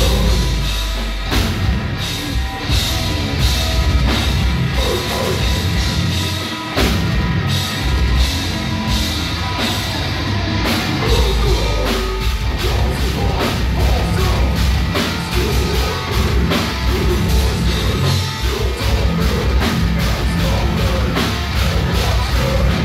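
Heavy metal band playing live: electric guitar, bass and a drum kit with rapid drum hits, and a vocalist singing into the microphone.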